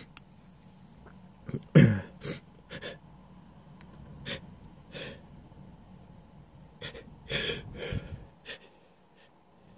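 A person sneezes once, loudly, about two seconds in, with quick gasping in-breaths just before. Sniffs and short breaths follow.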